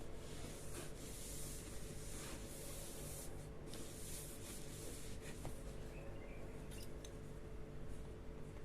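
Graphics card packaging being handled: rustling with a few light clicks and taps, over a steady low hum.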